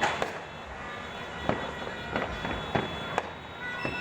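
Fireworks and firecrackers going off: about eight sharp, scattered bangs at irregular intervals.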